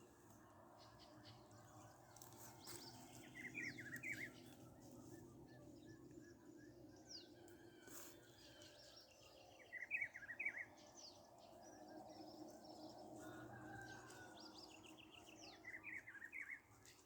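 A bird calls three times, about six seconds apart, each call a quick burst of a few notes. Fainter chirps from other birds and a low steady background sound run underneath.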